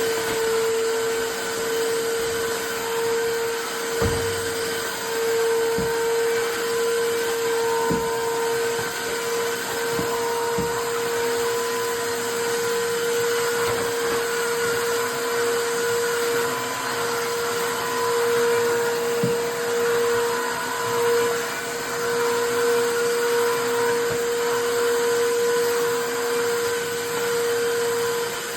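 Tineco iFLOOR 3 Breeze cordless wet-dry floor cleaner running steadily, its motor giving a constant hum over suction noise, with a few light knocks.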